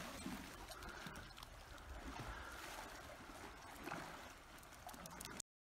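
Faint lapping and trickling of swimming-pool water, with light handling knocks. It cuts off suddenly to silence about five seconds in.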